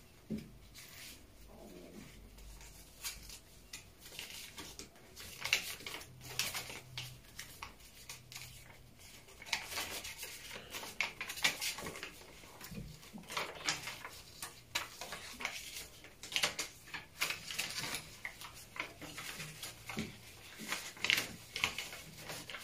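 Quiet rustling and light clicks of a small wallet being handled and paper bills being taken out and counted, scattered short crinkles throughout.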